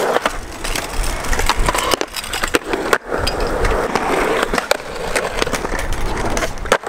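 Skateboard wheels rolling over concrete, broken by sharp clacks of the board popping and landing. The sound breaks off abruptly about three seconds in and again near the end.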